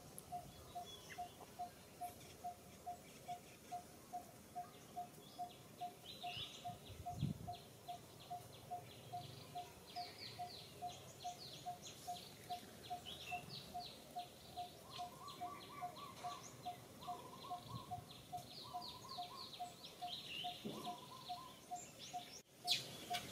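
Faint birdsong: one bird repeats a short mid-pitched note two or three times a second throughout, while other birds give quick runs of high, falling chirps and short trills.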